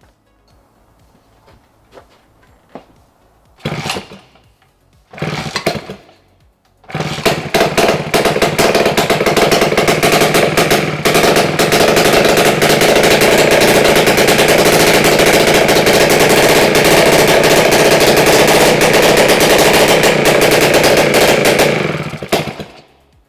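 The freshly rebuilt 125cc two-stroke engine of a 1961 Peugeot S57B scooter, started for the first time after a full restoration. Two short bursts come in the first few seconds. About seven seconds in it catches and runs steadily for about fifteen seconds, then dies away.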